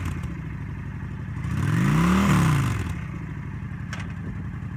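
2008 Honda Shadow Aero 750's V-twin engine idling, blipped once about halfway through so that it revs up and falls back to idle.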